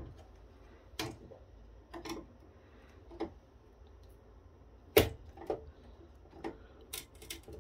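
Scattered sharp clicks and taps of a thin metal pry tool and fingers working at a heatsink glued onto a chip on a circuit board, trying to lever it loose; the sharpest click comes about five seconds in, with a quick run of clicks near the end.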